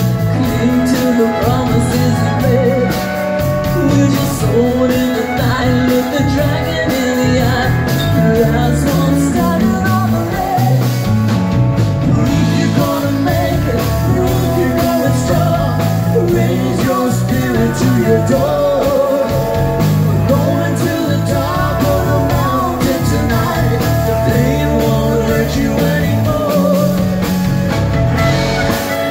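A live band playing a song: strummed acoustic guitar and drums, with a woman singing. A fiddle is bowed near the end.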